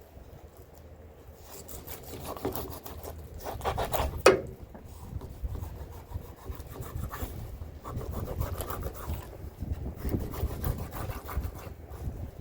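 Fillet knife sawing and scraping through rockfish in irregular rasping strokes, with one sharp knock about four seconds in.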